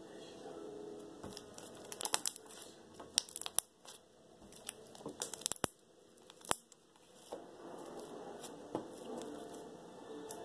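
Slime being squished and stretched by hand, giving irregular sticky clicks and pops that come thickest in the middle of the stretch.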